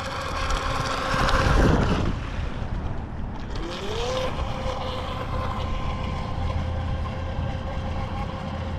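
Brushless electric motor of an RC jet boat whining over the water, its pitch dropping sharply about two seconds in as the throttle comes off, then rising again around four seconds and holding steady. Wind rumbles on the microphone.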